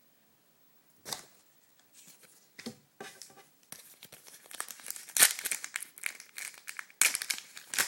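A trading card booster pack's foil wrapper being torn open and crinkled. A few faint rustles come first, then a dense crackling rustle from about four seconds in, loudest near the end.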